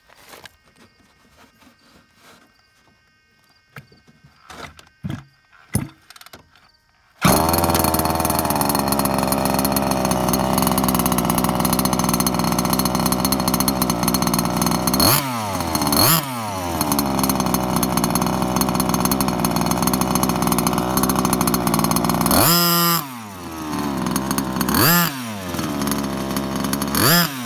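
Rovan Baja Terminator 1/5-scale RC truck's 36cc two-stroke petrol engine, fitted with a new tuned exhaust pipe. After a few faint clicks it starts suddenly about seven seconds in and runs loudly and steadily. Later the revs dip and climb again several times as the throttle is worked.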